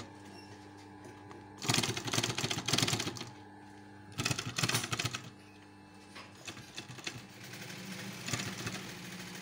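Industrial single-needle sewing machine stitching car upholstery material in short runs: two bursts of rapid needle strokes, the first about a second and a half in and the second about four seconds in, then lighter stop-start stitching. The motor keeps up a steady hum between runs.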